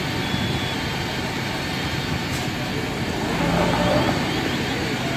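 Fire engine running at a fire scene: a steady, even engine drone with no distinct events.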